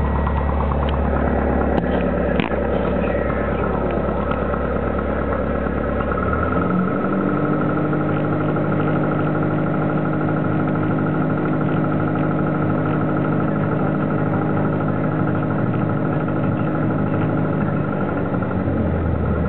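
Piper Cherokee's piston engine and propeller heard from inside the cockpit, running steadily. About six seconds in, the engine speeds up to a higher, steady pitch. It drops back to its lower idle note just before the end.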